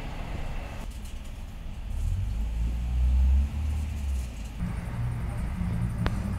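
A low rumble that swells about three seconds in and then eases, with a single sharp click near the end.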